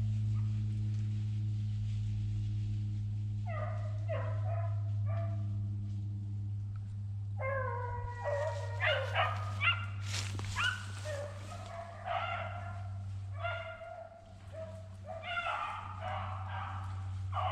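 A pack of beagles baying on a rabbit's trail. Scattered bursts of voices come a few seconds in, and from about halfway the pack joins into a steady chorus. A steady low hum runs under it.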